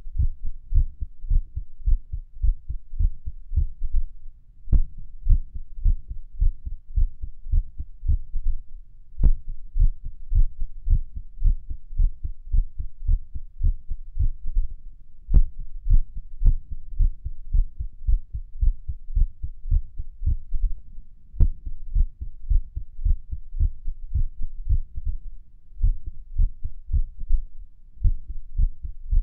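Human heartbeat recorded against the chest at Erb's point: a steady run of low lub-dub thumps that the uploader calls irregular. A few sharp clicks are heard over them, about five times.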